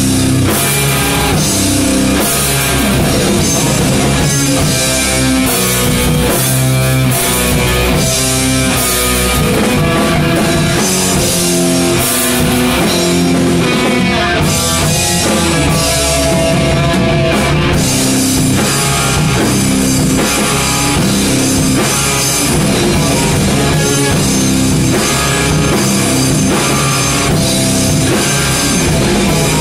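Live doom/black metal band playing loud: distorted electric guitars and bass over a drum kit, unbroken throughout.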